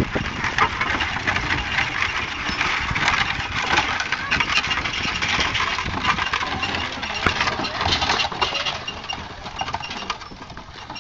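Horse-drawn wooden covered wagon rolling past on a dirt and gravel track, its wheels crunching and the wagon rattling and clinking. The noise eases off a little near the end as the wagon moves away.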